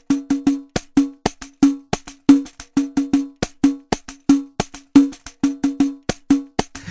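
Solo hand percussion opening a song: sharp strokes with a jingling top and a short pitched knock beneath, played in a syncopated rhythm of about four to five strokes a second.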